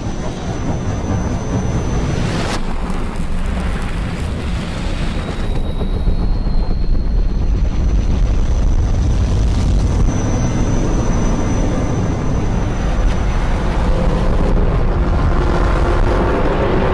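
Animated combat helicopter sound effects played backwards: a steady deep rotor-and-engine rumble, with one sharp hit about two and a half seconds in.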